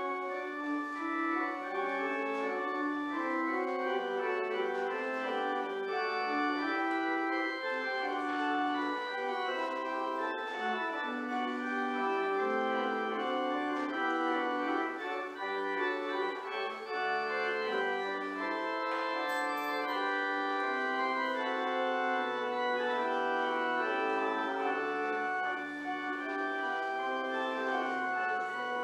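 Church organ playing a postlude after the blessing, a continuous flowing piece of sustained chords with moving lines.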